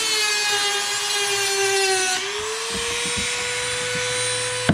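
Dremel rotary tool with a cutting bit whining at high speed as it cuts through a C7 Corvette's quarter panel. The pitch sags a little for about two seconds, then rises back to a steady whine, with a few light knocks in the second half and a sharp tap near the end.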